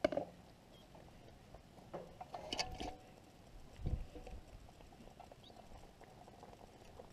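Chunks of potato and carrot being pushed and settled by hand into a metal Dutch oven around a turkey breast: scattered soft knocks and rustles, a cluster of them two to three seconds in and a dull thump at about four seconds.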